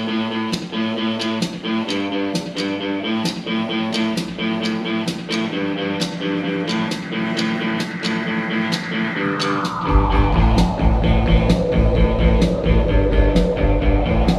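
Live band playing the instrumental opening of a song: electric guitar, keyboards and drums over a steady beat. About nine seconds in, a falling pitch glide sweeps down, then the bass and kick drum come in and the music gets louder.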